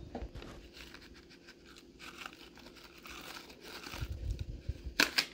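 Packet of dry onion soup mix crinkling and rustling in the hand as its powder is shaken out over a raw pork roast, with a few louder crinkles about five seconds in.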